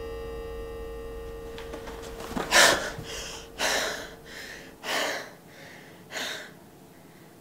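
A young woman's distressed gasping sobs: four sharp, noisy breaths about a second apart, starting a couple of seconds in, while a held music note fades out.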